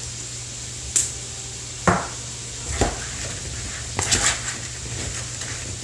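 Dishes and utensils handled on a kitchen counter: about four separate clinks and knocks, roughly a second apart.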